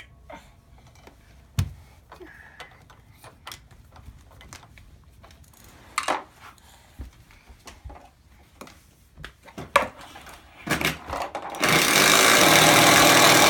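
Scattered light clicks and knocks of hand-tool work, then near the end a power drill starts and runs steadily and loudly, described as 'loud'.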